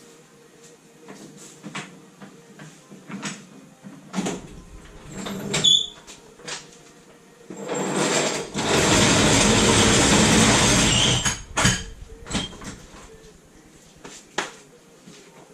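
Workshop work on a classic Mini engine bay: scattered metal clanks and knocks with a short squeak, then a loud, even rushing noise lasting about three and a half seconds before the knocking resumes.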